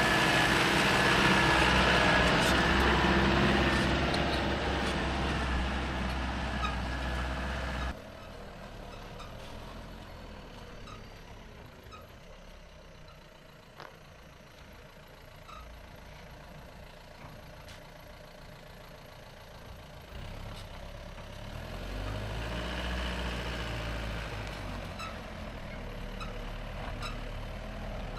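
Truck engine running, loud at first, then dropping suddenly to a quieter level about eight seconds in and building again near the end.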